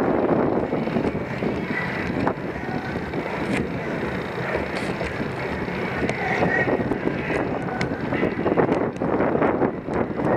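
Wind rushing over the microphone of a camera riding on a slowly moving bicycle, with road noise and a few sharp clicks.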